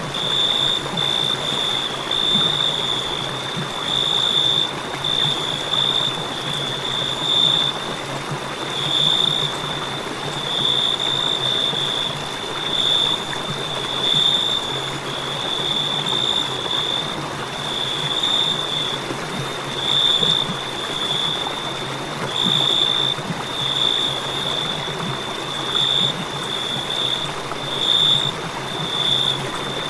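Crickets chirping: one high note pulsing in quick, uneven clusters without pause, over a low steady hum and a faint hiss.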